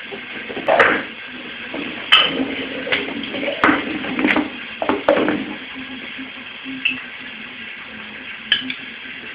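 A beagle puppy's food bowl clattering and knocking on a tiled floor as the puppy noses it along and picks it up in its mouth: a quick run of sharp knocks over the first few seconds, then two more spaced out near the end.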